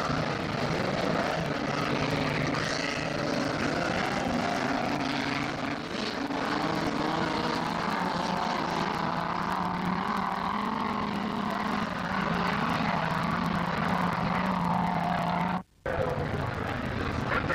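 Several autocross racing cars' engines running hard together at high revs, their pitch shifting a little as the cars accelerate and lift. The sound drops out for a fraction of a second near the end.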